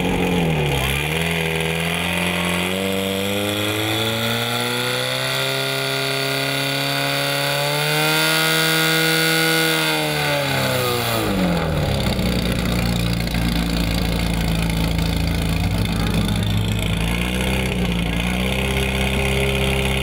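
Portable fire pump's engine revved up under load: its pitch climbs for several seconds and holds high. Then it drops sharply about halfway through and runs steadily at a lower speed, dipping briefly once more near the end.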